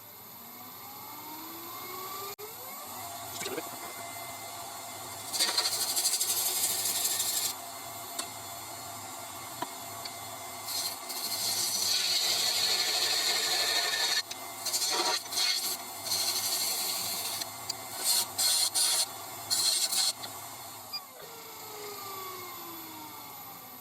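A wood lathe's motor spins up with a rising whine, then a chisel cuts into the spinning spalted wood blank in several hissing scraping passes of a few seconds each. Near the end the lathe is switched off and winds down with a falling whine.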